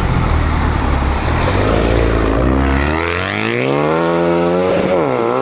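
Race car engine sound effect: a low rumbling run, then revving up steeply in pitch about three seconds in, dipping briefly near the end and climbing again.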